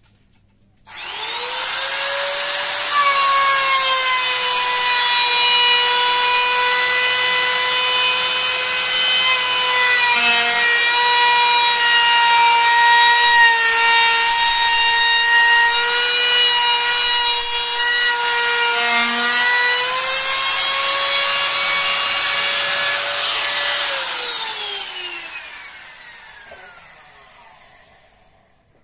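Electric trim router starting up, then routing along the edge of a 15 mm rubberwood panel with a steady high whine whose pitch sags slightly under load while cutting. Near the end it is switched off and winds down, its pitch falling away.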